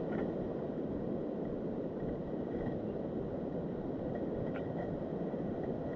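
Steady rushing of stream water over rocks, with a faint click about four and a half seconds in.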